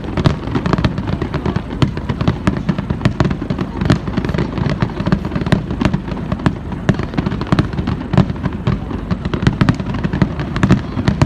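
Fireworks display in a rapid barrage: many bangs and crackles a second, overlapping without a break.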